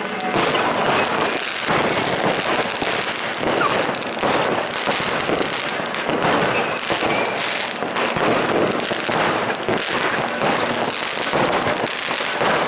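Many fireworks and firecrackers going off at once: a dense, unbroken crackle of bangs with no pauses.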